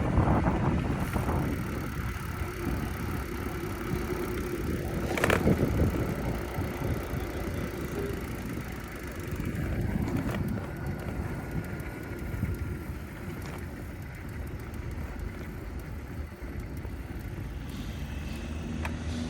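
VanMoof A5 e-bike being ridden: a steady low rumble of tyre and wind noise, with one sharp click about five seconds in.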